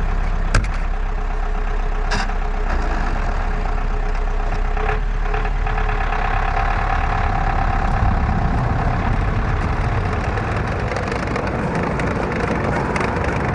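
Tracked all-terrain vehicle's engine running steadily with a deep drone, with a single sharp knock about half a second in.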